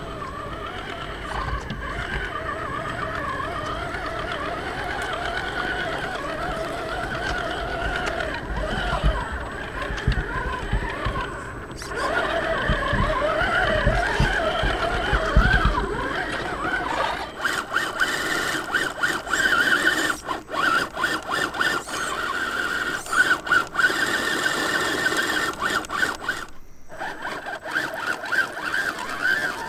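An RC crawler's 55-turn brushed electric motor and geared drivetrain whining as it drives through mud, the pitch wavering up and down with the throttle. A low rumble runs underneath until about halfway through. After that the whine turns steadier and is broken often by brief gaps.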